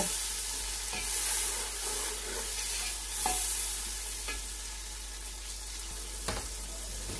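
Onions and tomato–green chilli paste sizzling in hot oil in a pot while a spatula stirs and scrapes through them, with a few light taps of the spatula against the pot. The sizzle is steady and eases a little in the second half as the stirring stops.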